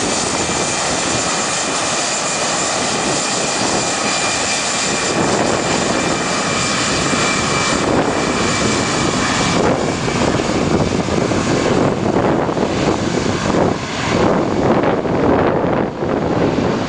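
Airbus jet engines at takeoff power, a steady rushing roar with a high fan whine that fades about ten seconds in as the airliner climbs away. Wind gusts buffet the microphone in the second half.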